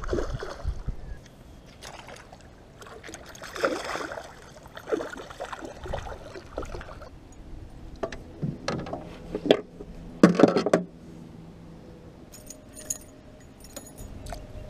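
A hooked northern pike splashing at the surface beside a small boat, then knocks and handling noises as it is landed by hand. Near the end there is a fine metallic jingle as the spinnerbait is worked out of its jaw with pliers.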